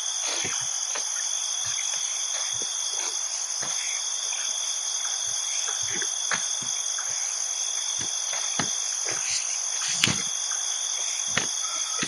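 Steady insect chorus at two high pitches, with scattered soft knocks and one louder knock about ten seconds in.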